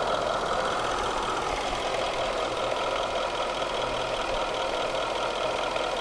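2013 Jaguar XKR's 5.0-litre supercharged V8 idling steadily, heard from the open engine bay, with the air conditioning switched on at maximum.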